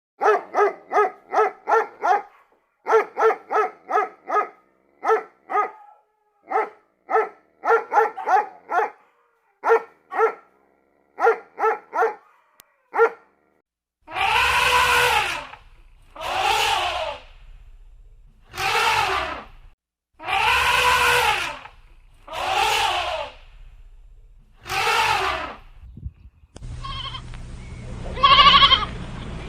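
A dog barking in quick runs of short barks, then a baby elephant trumpeting six times, each call about a second long. Near the end, lambs bleating over a steady low hum.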